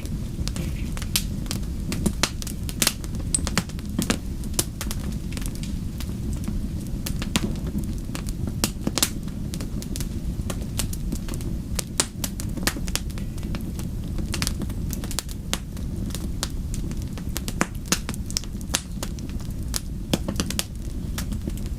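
Wood fire crackling: irregular sharp pops and snaps, several a second, over a steady low rumble of the flames.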